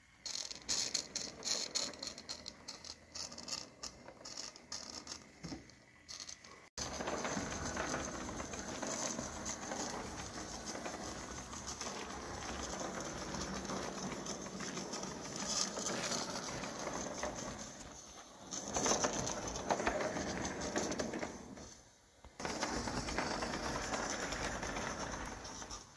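1915 Bing S 2/6 gauge 1 live steam locomotive running on the track: a rattle of irregular clicks for the first few seconds, then a steady rushing noise from the running engine, which leaks steam from its front end, and its wheels on the rails.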